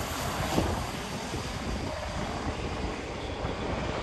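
Jet engine of a BAE Hawk jet trainer flying low on approach: a steady rumble, with wind buffeting the microphone.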